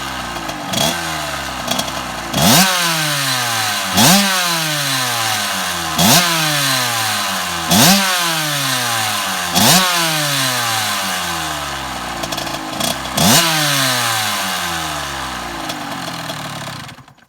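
Kawasaki KX85 single-cylinder two-stroke dirt bike engine being revved: the throttle is blipped about seven times, each rev jumping up sharply and falling back to a fast idle. The engine is shut off near the end.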